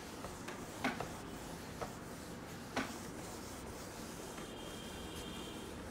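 Whiteboard eraser rubbing across a whiteboard as the board is wiped clean, faint, with a few short knocks, the clearest about one and three seconds in.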